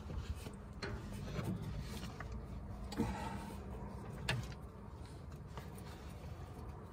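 Quiet handling noises as a rubber fuel line and J-clamp are worked into place in an engine bay: light rustling with a few short knocks of metal.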